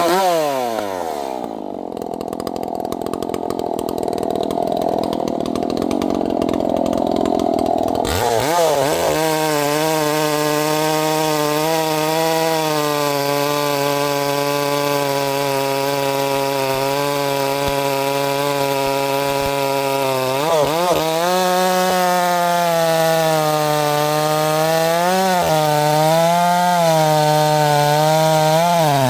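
Two-stroke chainsaw noodling firewood, ripping along the grain of a round. The engine falls off at the start and runs duller for several seconds. About eight seconds in it revs back up and holds a steady high pitch, sagging briefly under load about two-thirds through and wavering near the end.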